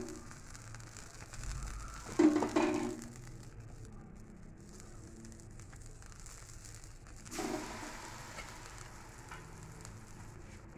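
Water-wetted kulcha dough laid onto a hot iron tawa, hissing and sizzling as the water meets the metal. A short clatter about two seconds in. A fresh burst of sizzle about seven seconds in, which then fades slowly.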